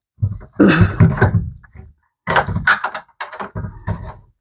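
Washing machine motor being slid and worked into place on its mount: a run of knocks, thuds and scraping, in two bouts.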